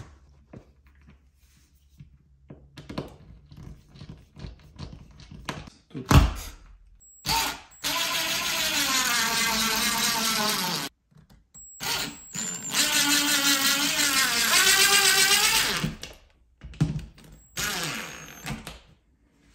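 Cordless drill driving a screw through a towel-bar mounting bracket into wood sheathing behind drywall. The motor runs in two bursts of a few seconds each, its pitch dropping near the end of the first as the screw tightens. Small clicks and a couple of knocks come before the first burst, as the screw is set by hand.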